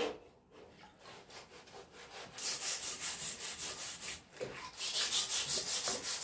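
Rapid back-and-forth hand scrubbing of the rusty radial drill spindle in a tray of de-rusting solution, clearing loosened rust from its surface. The strokes start about two seconds in, go at about five a second, pause briefly and start again.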